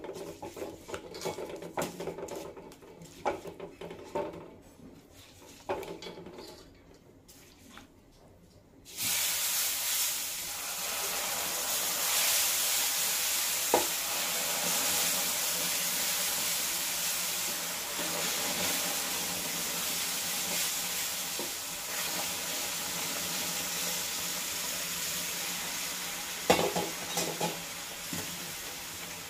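Silicone spatula scraping and stirring ghee-roasted wheat flour in a non-stick pan. About nine seconds in, the sugar-and-water syrup is poured in and a loud, steady sizzling hiss starts suddenly as it hits the hot flour and ghee, and carries on while the mixture is stirred. A few louder knocks come near the end.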